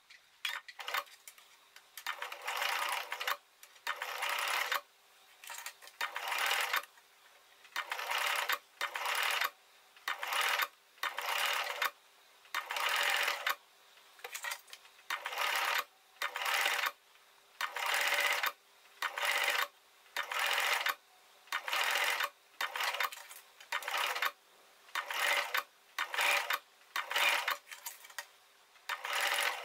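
Electric sewing machine stitching in short runs, stopping and starting about once a second as the fabric is eased around a curved seam, with a faint steady hum in the pauses.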